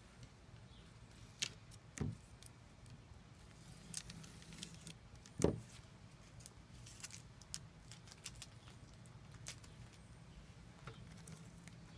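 Faint scattered clicks and light taps from hands handling a wooden panel, the loudest about two and five and a half seconds in, over a low steady hum.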